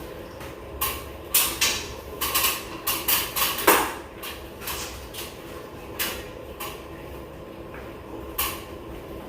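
A run of sharp knocks and clicks, about a dozen, thickest in the first four seconds and then scattered, over a steady low hum.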